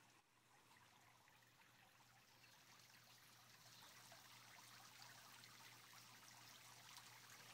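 Faint, steady splashing of a small pond fountain's spray falling back onto the water surface, growing slightly louder.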